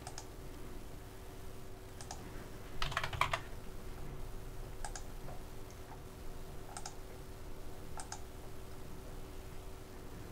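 Sparse clicks from working a computer keyboard and mouse: a quick run of several taps about three seconds in, then single clicks every second or two, over a faint steady hum.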